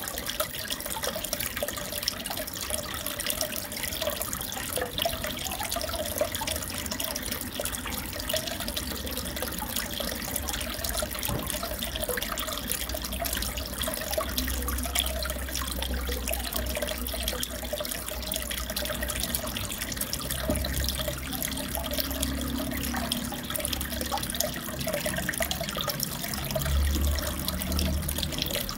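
Aquarium water trickling and splashing steadily, with a low hum coming and going underneath.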